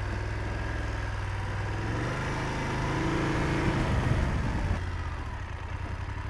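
BMW F750GS parallel-twin engine running at low speed as the bike is ridden on a narrow gravel forest track. The revs pick up for a couple of seconds in the middle, then drop back to a steady low hum about two thirds of the way in.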